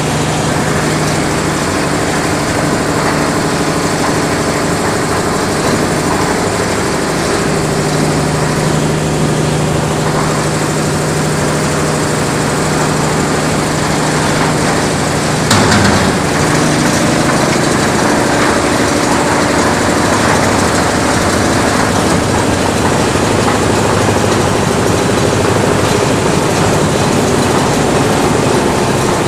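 Hydraulic concrete mixer with hopper and hoist running: a steady motor and drum rumble with a hum that stops with a sharp clunk about halfway through, the machine running on after it.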